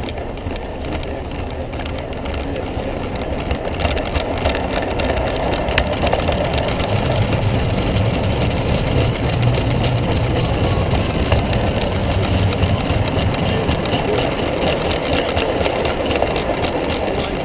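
Large-scale garden model train running on its track, heard from a camera riding on one of its cars: a steady close rattle and rumble of wheels and running gear. The rumble grows louder and deeper while the train passes through a tunnel in the middle.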